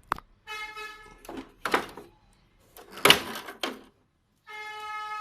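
Knocks and clatter of a plastic air conditioner front panel being handled and taken off, the loudest knock about three seconds in. A steady pitched tone, like a horn, sounds briefly near the start and again from about four and a half seconds on.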